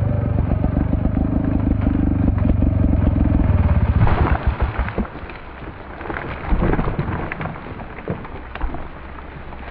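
Chainsaw engine idling with a rapid low pulsing, dropping away about four seconds in. Scattered sharp knocks and cracks follow.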